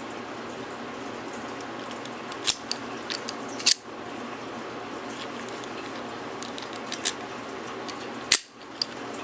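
Sharp metallic clicks from a pick and tension wrench working the pin stack of a Master Lock Magnum padlock with spool security pins: a few scattered clicks in small clusters, the loudest near the end. A steady hiss runs underneath.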